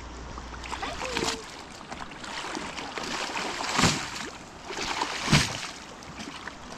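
River water running, with a few splashes; the two loudest come in the second half, about a second and a half apart.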